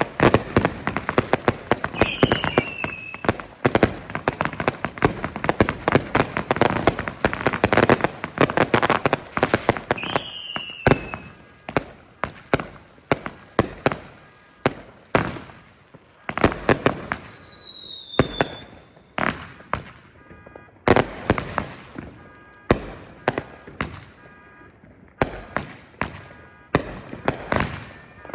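Fireworks and firecrackers going off: dense, rapid crackling and popping for roughly the first ten seconds, then separate bangs spaced out. A falling whistle is heard three times: near the start, about ten seconds in, and again past halfway.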